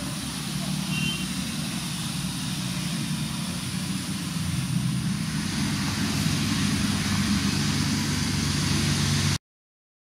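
Steady outdoor background noise: a low rumble with a faint high hiss, cutting off suddenly near the end.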